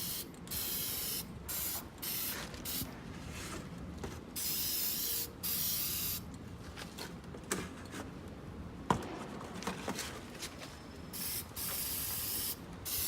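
Aerosol spray can of gray primer spraying in short bursts, one after another. There is a quieter pause in the middle with a couple of sharp knocks, then more spraying near the end.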